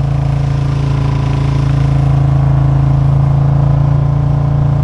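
Engine running steadily at an even speed, a loud constant low drone.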